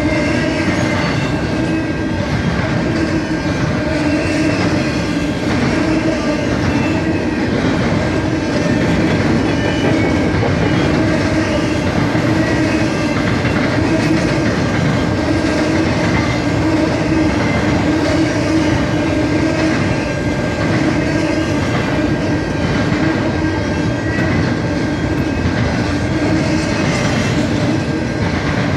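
CN freight train's cars rolling past at steady speed: a continuous rumble with wheels clacking over the rail joints and a thin steady whine above it.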